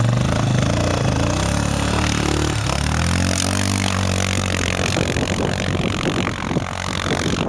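ATV engine revving as the quad pulls away through slushy mud, its pitch climbing and wavering about two to four seconds in. The engine then fades as it moves off, leaving a rushing noise of wheels and slush.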